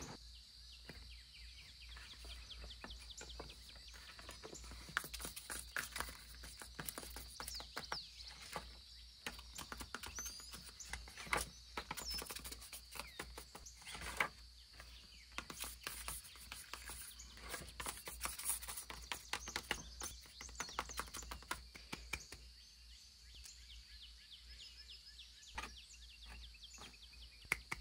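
Close-miked paper handling: stiff sticker-book pages in a ring binder being turned and shuffled, with many small crinkles, rustles and taps, a few of them sharper.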